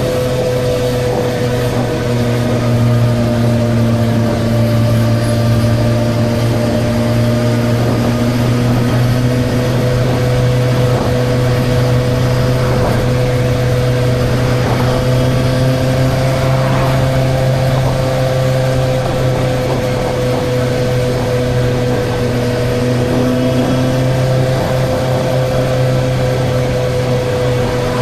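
Suzuki GSR 600's inline-four engine running at a steady speed, its note holding nearly constant, under a hiss of noise.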